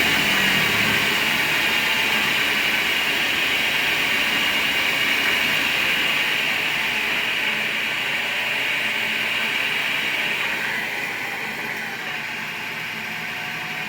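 Monarch 10EE lathe spindle and its DC drive motor running with a steady whirring hiss that eases off gradually as the speed is brought down. The sound drops noticeably about ten seconds in.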